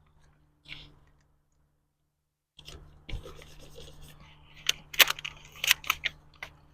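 Paper target being handled and patched with stick-on target pasters: crinkling, rubbing paper with sharp ticks, in two spells with a short pause between.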